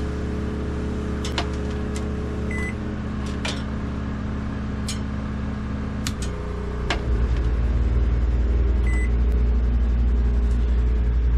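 WEN 3600-watt portable generator running under a heavy combined load of air conditioner, heater and microwave, a steady engine hum mixed with the microwave's running hum. Two short high beeps sound, one early and one later. About seven seconds in, the engine note shifts and gets louder with a pulsing beat, as the generator takes up the changing load.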